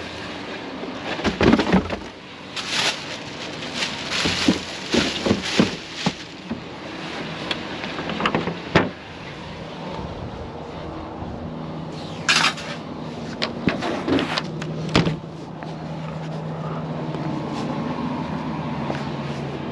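A series of sharp knocks and clatters, then a vehicle engine running steadily from about the middle on.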